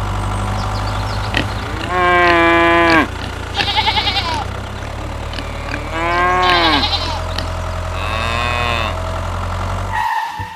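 A steady low engine-like hum idling under farm-animal calls: two long, arching moo-like calls about two and six seconds in, with shorter bleating cries between them and another call after eight seconds. The hum cuts off near the end.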